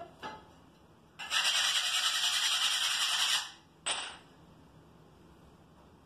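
Ceramic subway tiles being handled: two light clicks as a tile is pressed into place, then a steady scraping hiss of about two seconds as another tile is drawn out. A short scrape follows near four seconds in.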